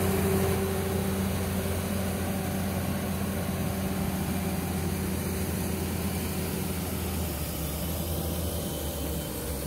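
Wheel loader's diesel engine running steadily with a low, even hum.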